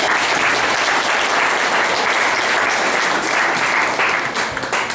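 A roomful of seated guests applauding, a steady dense clapping that tapers off near the end.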